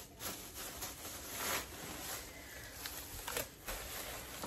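Rustling and handling noises as items are rummaged through and picked up, with several brief rustles and scrapes.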